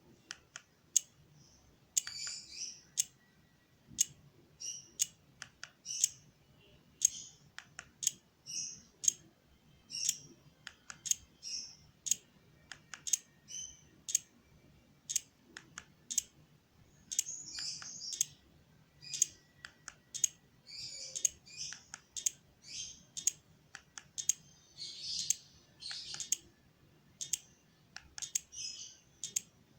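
Sharp clicks and taps throughout, with a small bird chirping over them in short repeated calls.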